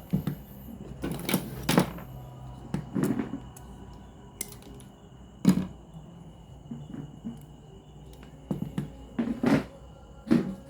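Irregular clicks and knocks of hard objects being handled, about a dozen of them, the loudest a sharp knock about five and a half seconds in, over a faint steady high tone.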